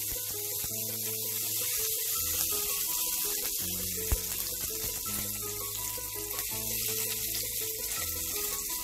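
Cumin seeds and curry leaves sizzling in hot oil in a stainless steel pan: a steady frying hiss, with a single sharp click about four seconds in. Background music with held notes underneath.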